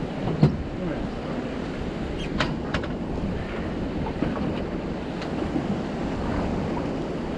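Wind buffeting the microphone over water lapping against a small fishing boat's hull, with a sharp knock about half a second in and a couple of fainter taps a couple of seconds later.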